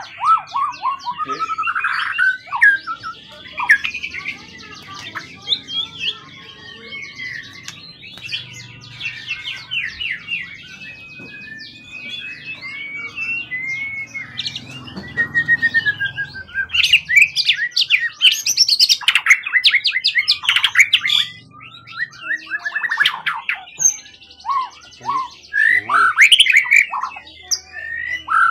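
A kept songbird singing a long, varied song of sweeping whistles, rapid trills and chattering phrases. The densest, loudest bursts come in the second half.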